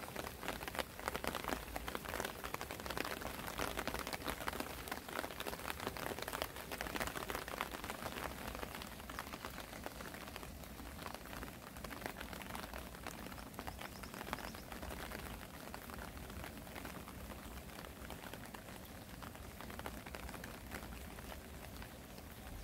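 Spring rain falling, many small drops pattering and ticking in a dense, even patter. The drops come thicker and sharper in roughly the first ten seconds, then settle to a softer, steadier patter.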